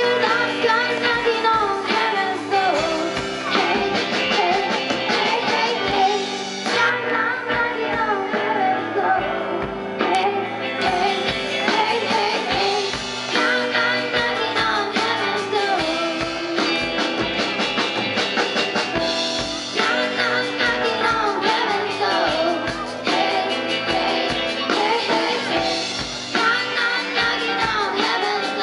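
Young rock band playing live: singing over electric guitar and drum kit.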